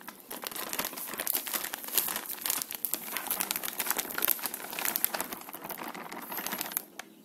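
Plastic wheat-flour bag crinkling and crackling as it is tipped and shaken to pour flour into a mixing bowl. The crackle is dense and continuous and stops near the end.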